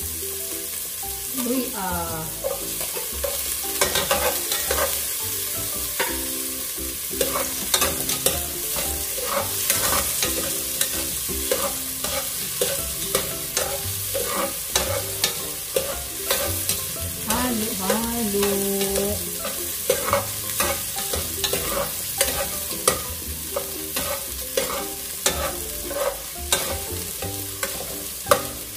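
Sliced onion sizzling in hot oil in a large aluminium pot, stirred with a long metal ladle that scrapes and clinks against the pot's sides and bottom every second or so.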